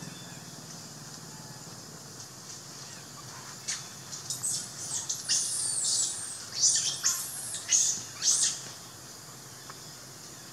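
A quick run of about ten high-pitched chirping and squealing animal calls. Some are short downward sweeps and some are held with a wavering pitch. They start about three and a half seconds in and stop about eight and a half seconds in.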